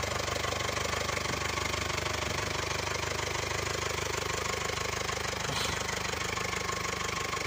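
Nuffield Universal 4 tractor's four-cylinder diesel engine running steadily at idle, with an even, regular beat.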